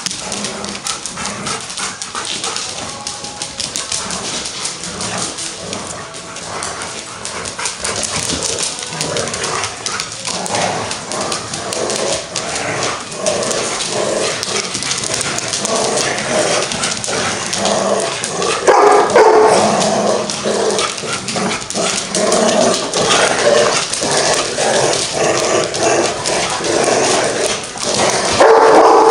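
Several dogs barking and yipping as they play, the barks coming thicker and louder from about a third of the way in and loudest about two thirds of the way through and again near the end.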